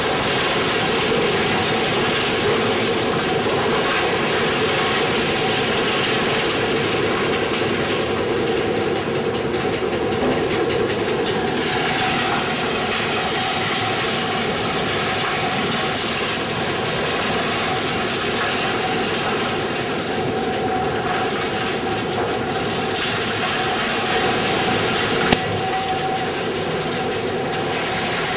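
Industrial wood chipper and its log-feed conveyor running, a loud, steady mechanical din as logs are drawn into the spiked feed rollers, with one sharp knock near the end.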